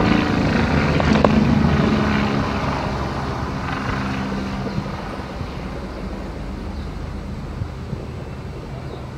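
Police helicopter passing overhead, its rotor and engine giving a steady low hum that grows steadily fainter as it flies off.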